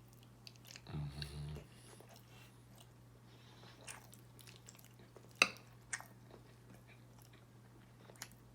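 Close-up mouth sounds of a person chewing food, with scattered wet clicks and smacks, the sharpest about halfway through. A brief closed-mouth hum comes about a second in.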